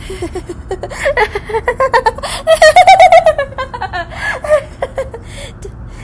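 A young woman's voice laughing: quick breathy chuckles that build into a loud, high laugh about halfway through, then trail off into smaller chuckles.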